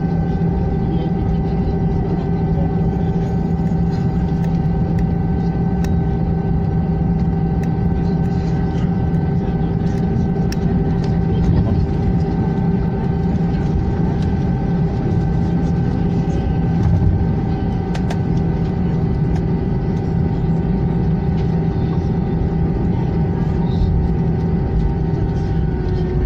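Steady drone of an airliner's engines heard inside the cabin during takeoff and climb: a deep rumble with several steady, even tones held over it.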